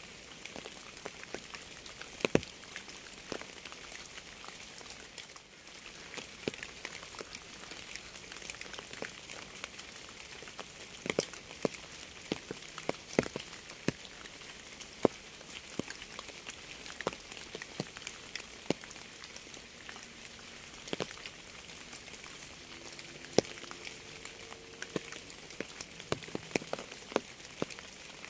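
Steady rain hiss with many separate drops ticking sharply on a hard surface at irregular moments.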